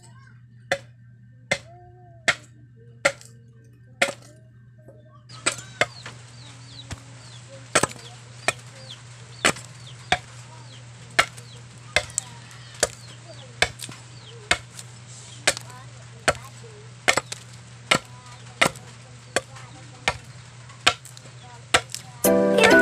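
Bolo knife chopping into a block of wood again and again, about one sharp chop every 0.8 seconds, as the wood is shaved thinner. Chickens cluck in the background, and music comes in near the end.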